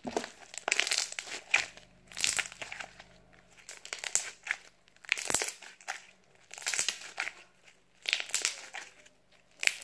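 White fluffy homemade slime squeezed and pressed in the hands, crunching and crackling in short bursts about every one to two seconds.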